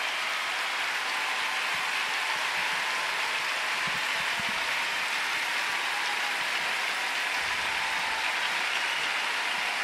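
Large arena crowd applauding an ice skating performance.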